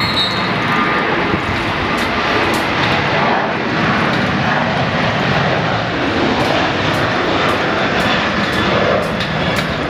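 An airplane flying over, its engines making a steady, even rushing rumble, with a few faint clicks.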